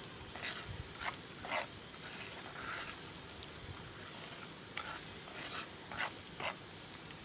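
Steel spoon stirring and scraping semolina as it roasts golden in ghee in a frying pan: a series of short, irregular scraping strokes over a faint steady sizzle of frying.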